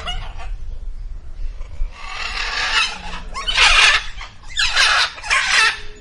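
An animal squealing: about four harsh, screeching calls in the second half, each under a second long, the last three the loudest.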